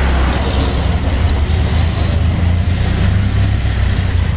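Heavy rain falling as a steady, loud hiss, over a low rumble.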